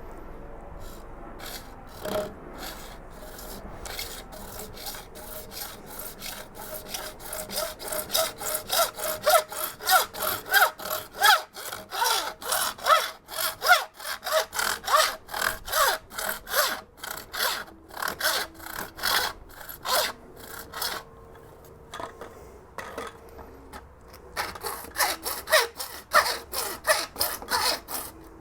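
A saw cutting through PVC pipe in rapid back-and-forth strokes. It pauses briefly near the end, then starts sawing again.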